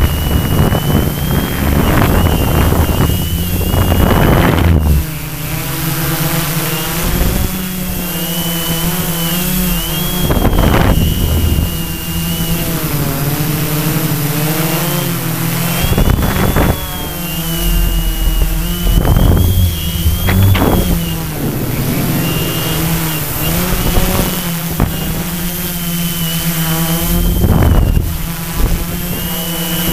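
ArduCopter multirotor's electric motors and propellers buzzing in flight, heard from a camera on the frame. The pitch wavers up and down as the motor speeds change. Several loud rushes of wind noise hit the microphone.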